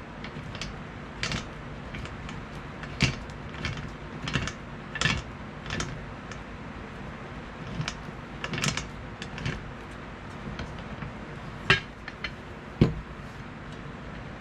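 Scattered metal clicks and clanks from handling a restored WWII-era folding entrenching tool, with two louder knocks near the end.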